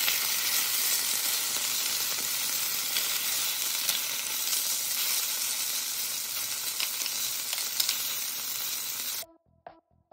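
Meat sizzling hard as it fries in a small stainless steel pan, stirred and turned with metal tongs. The sizzle cuts off abruptly near the end.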